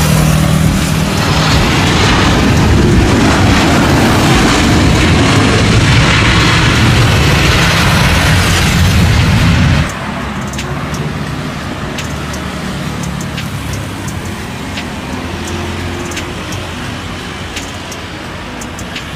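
Loud jet engine noise of a Boeing 737 airliner touching down and rolling out on the runway. About ten seconds in it cuts off abruptly to quieter jet noise from another airliner rolling on the runway, with music playing underneath.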